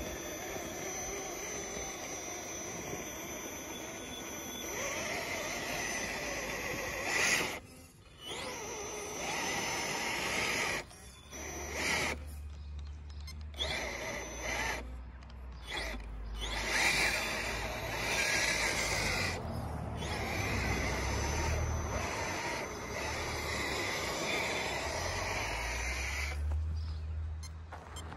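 Holmes Hobbies Revolver brushless motor on a Castle SW4 controller driving a Traxxas TRX-4 Sport RC crawler, running with a high whine under throttle. The sound stops and restarts several times as the throttle is let off and reapplied.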